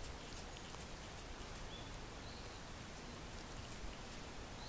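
Quiet outdoor ambience: a steady hiss with scattered soft ticks and a few faint, brief high chirps.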